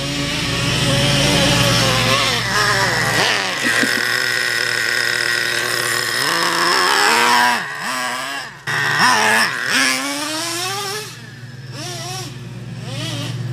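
Small nitro RC car engine running and revving, its pitch rising and falling again and again as the car is driven; the owner says it is running really rich.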